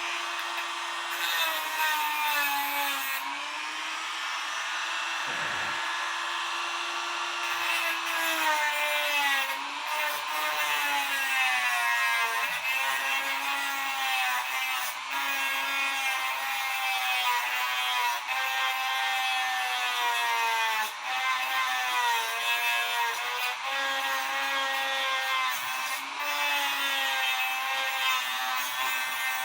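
Dremel rotary tool running, grinding down the metal tip of a hand tool to make it thin; the motor's whine dips and comes back up in pitch again and again as the bit is pressed into the metal.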